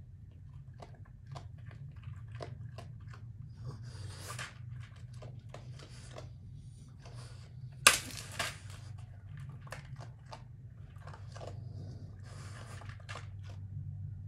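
Raccoons crunching and chewing food from a plastic dish, with many short crisp bites. About eight seconds in they scuffle over the dish, which brings the loudest sound: one sudden sharp hit. A steady low hum runs underneath.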